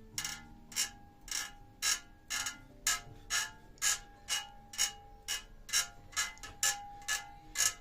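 Chevrolet Cruze rear torsion-beam suspension creaking as the bare beam, springs and shock absorbers removed, is rocked up and down: a short squeak about twice a second. The owner hears it as coming from the beam itself but thinks it most likely the beam's rubber bushings (silent blocks).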